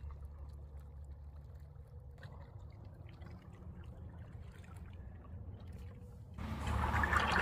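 Low, steady rumble of wind on a phone's microphone, with faint scuffs and small clicks of footsteps on rock. About six seconds in, a louder rush of wind or handling noise sets in.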